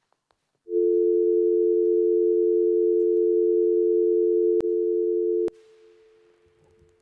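Landline telephone dial tone: a steady two-note hum that comes on suddenly, meaning the line is open and ready to dial. About five seconds in there are two clicks, and after the second the tone carries on much fainter.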